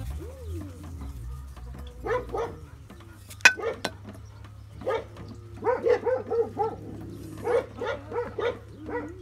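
A dog barking repeatedly, in short runs of quick barks, with one sharp click about three and a half seconds in.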